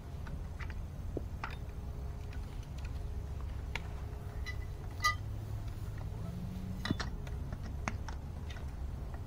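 Scattered light clicks and knocks of greenhouse frame poles and connectors being handled and pushed together, over a low steady rumble. The sharpest click comes about five seconds in.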